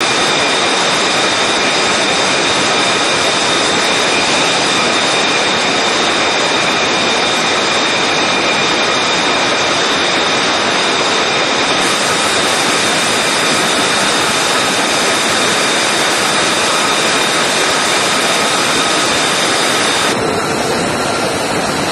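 Jet engine running on an aircraft carrier's flight deck: a loud, steady rush with a high, steady whine over it, the whine dropping away near the end.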